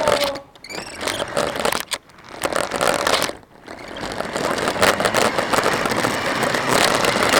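An RC car driving over rough ground, its wheels crunching and rattling, heard from the camera mounted on the car. The noise drops out briefly a few times in the first half, then runs steadily.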